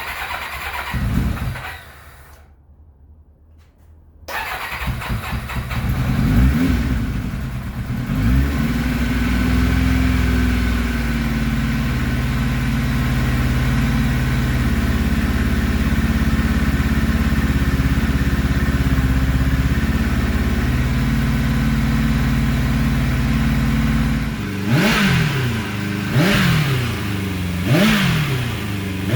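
Turbocharged 1991 Kawasaki ZXR750 inline-four being started for the first time on a new fuel-injection setup: a brief crank, a pause, then cranking again until it catches and settles into a steady fast idle, with several quick throttle blips near the end. It runs rough and very rich.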